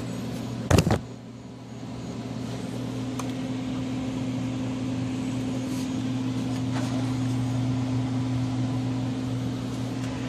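Steady mechanical hum, like an electric motor or fan running, over a noisy hiss, with a single sharp knock just under a second in.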